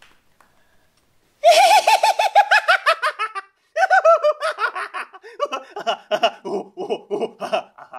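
A man's theatrical Joker-style laugh. It starts about a second and a half in as a loud, high-pitched cackle of rapid 'ha-ha' pulses falling in pitch. A second shorter burst follows, then a run of lower, quicker chuckles.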